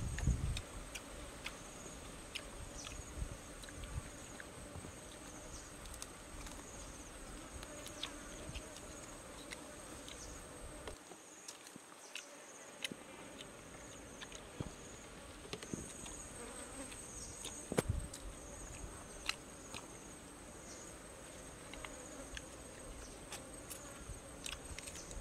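Insects droning steadily at a high pitch, with a short chirp repeating roughly once a second, over scattered small clicks from eating.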